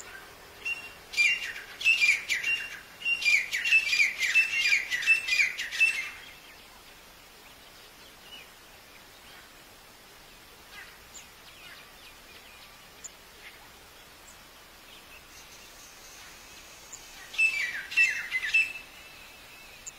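Black francolin calling: two runs of rapid, repeated down-slurred notes in the first six seconds, then a shorter run about three seconds before the end.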